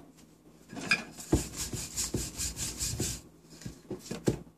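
Wooden rolling pin rolled back and forth over a stuffed paratha on a rolling board: a run of rubbing strokes with light wooden knocks, about three a second, then a few softer taps near the end.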